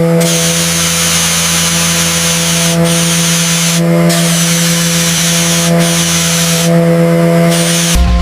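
Pressure blaster spraying rust off steel: a loud, steady hiss over a low hum, cutting out briefly four times as the trigger is eased.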